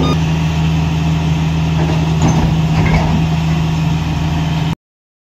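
Heavy diesel engine of a wheel loader running steadily with a low drone, then cutting off abruptly near the end.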